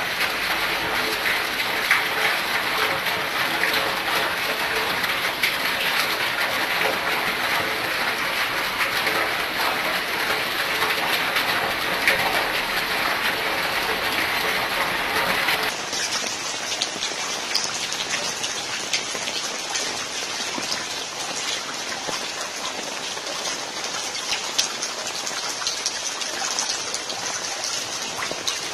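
Heavy rain falling steadily, a dense patter of drops with fine ticks. About halfway through the sound changes abruptly and loses its low rumble.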